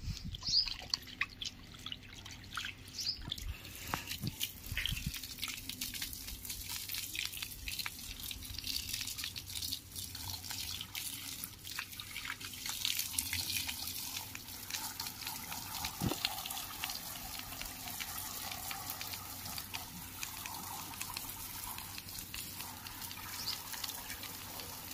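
A stream of water pouring over a German Shepherd's wet coat and splashing onto brick paving: a steady splashing spray with many small spatters and drips.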